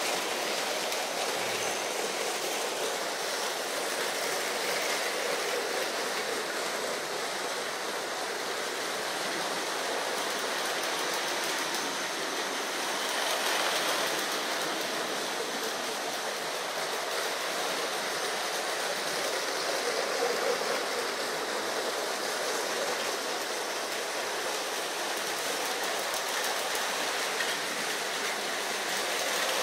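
Several Lego trains running at once on plastic track, making a steady, even rolling noise of small wheels and motors.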